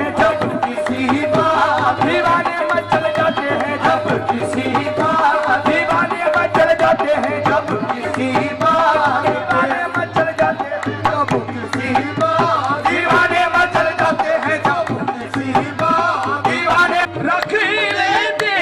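Qawwali music: a harmonium melody over a steady tabla beat, with no words sung.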